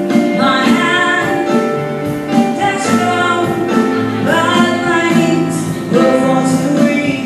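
A woman singing a ballad live into a microphone, accompanied by sustained chords on an electric keyboard.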